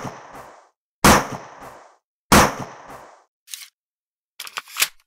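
Gunshot sound effects: loud single bangs about 1.3 seconds apart, each trailing off with a short echo, followed near the end by a few quick sharp clicks.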